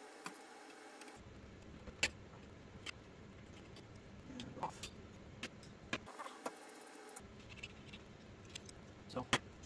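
Scattered small metallic clicks and taps of a screwdriver working the screws on a graphics card's stock cooler, with the sharpest clicks about two seconds in and near the end.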